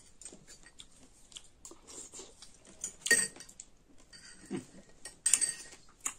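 Metal fork and spoon clinking and scraping against small glass bowls while eating mulberries, with scattered light ticks and two louder sharp clinks, one about halfway through and one near the end.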